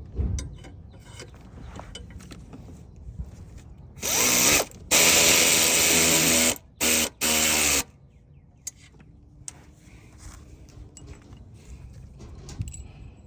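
Aircat 811 pneumatic tool running oil pan bolts in, in four trigger pulls starting about four seconds in, the longest nearly two seconds, with a loud air hiss and a motor whine that rises as it spins up. Light clinks and handling noise before and after.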